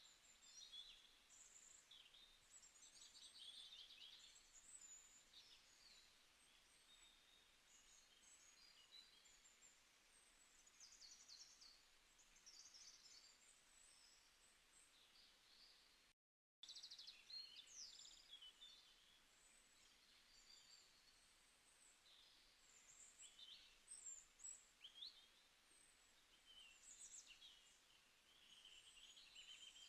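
Faint birdsong: many short chirps and quick trills from several birds, with a brief cut to silence about halfway through.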